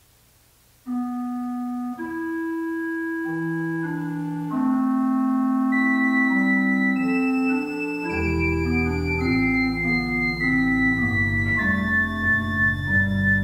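Beckerath pipe organ playing slow, sustained chords in several voices. The chords begin about a second in, more voices join, and a deeper bass line comes in about eight seconds in.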